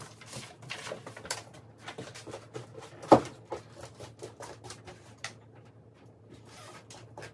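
Scattered clicks and knocks of household items being handled and set down, with one sharp, loud knock about three seconds in and a quieter stretch near the end. A faint steady low hum runs underneath.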